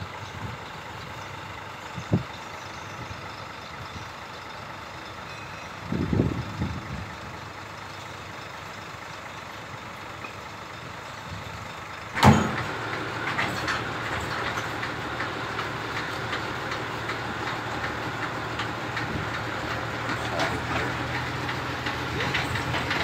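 A heavy vehicle engine idling steadily, with a single knock and a short clatter in the first half. About halfway there is a sudden loud click, after which the idle is louder and steadier.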